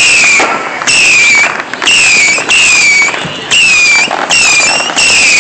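Whistling fireworks going off in quick succession, about one a second, each a loud short whistle falling slightly in pitch and cutting off sharply.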